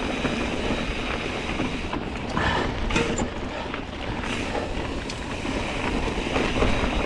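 Santa Cruz Tallboy mountain bike riding over rocky, chunky singletrack: steady tyre and trail noise with scattered clicks and rattles from the bike, and wind rumbling on the microphone.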